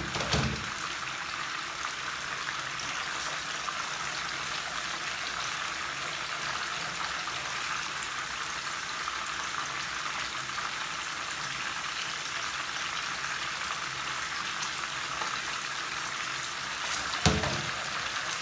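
Chicken pieces sizzling steadily in hot oil in a frying pan. A metal clunk comes at the start and another near the end, as a steel pot is handled on a stainless-steel sink drainer.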